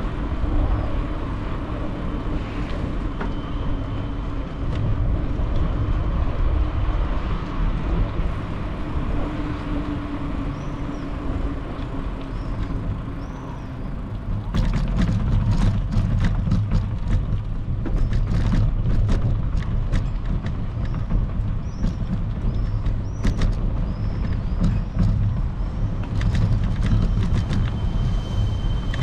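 Bicycle ride recorded from the bike: wind rumbling on the microphone over the hum of the tyres rolling. About halfway through the bike rolls onto stone paving slabs and the noise grows louder, with a rapid, irregular rattle and clicking from the bumps.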